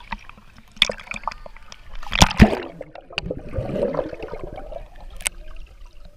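Pool water splashing and sloshing at the surface, with a loud splash about two seconds in, then muffled underwater gurgling and bubbling as the microphone goes under the water.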